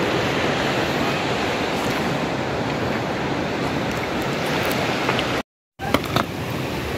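Steady rushing noise at an even level. The sound cuts out completely for a moment about five and a half seconds in, and a few light clicks follow.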